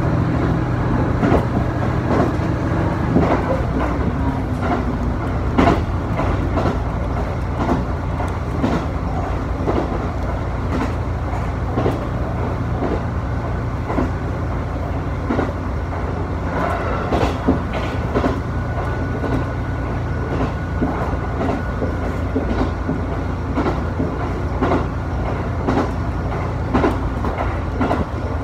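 Diesel railcar running along the track, heard from inside: a steady rumble with irregular clicks of the wheels over rail joints. The engine's low hum drops in pitch about three to five seconds in, and a faint high whine comes in about seventeen seconds in.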